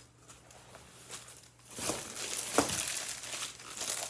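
Packaging crinkling and rustling as the router's parts are handled during unboxing. It starts about halfway through, with a single light knock soon after.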